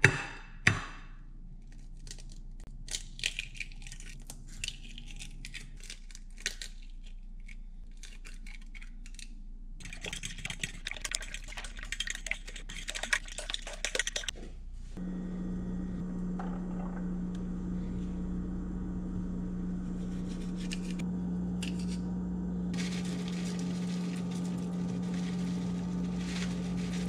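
Eggs cracked against a ceramic plate with a couple of sharp knocks, a few small clinks, then a fork beating the eggs on the plate with rapid scraping clicks for several seconds. From about halfway a steady low hum with one held tone runs on under the quieter sounds of adding ingredients.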